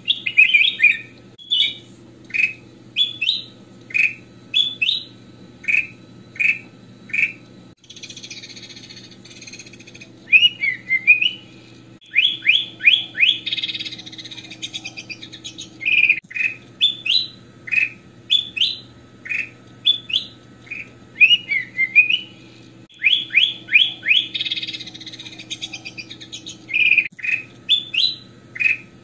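Ruby-throated bulbul (kutilang emas) singing: a long string of short, clear whistled notes about two a second. It is broken three times by bursts of harsher, scratchy chatter.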